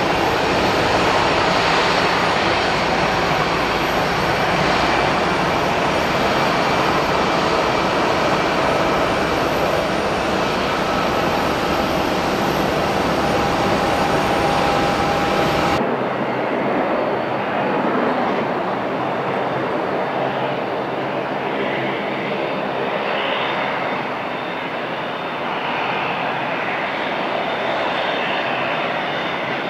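Airliner engines running loud and steady, with a thin whine in the middle. About halfway through, the sound changes abruptly to a thinner noise with less of the deep rumble and less of the hiss.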